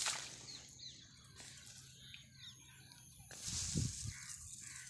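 Rustling swish of flattened rice stalks brushed while walking through the paddy, once right at the start and again, louder with a low thud, between about three and a half and four seconds in. Faint short bird chirps in between.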